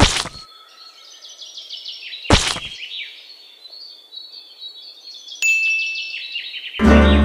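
Chime sound effect: two short swishes, each followed by a run of high tinkling tones stepping downward in pitch, and a brief held tone with a click about five seconds in. Banjo music comes back in near the end.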